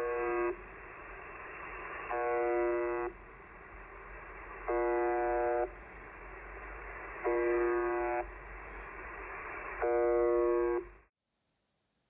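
Russian shortwave station UVB-76, 'the Buzzer', received on an Icom IC-705 transceiver in upper sideband near 4625 kHz: a buzz about a second long repeating roughly every two and a half seconds over steady radio hiss. The reception cuts off shortly before the end.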